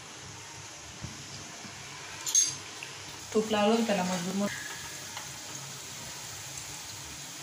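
Gulab jamun dough balls frying in hot oil in a kadhai: a steady sizzle, with a short clink a little over two seconds in. A brief voice sounds for about a second, a little past three seconds in.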